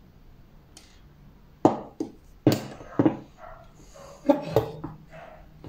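A dog barking about six times in a quick, irregular series, the first bark about a second and a half in. The barks are sharp and loud and fade quickly.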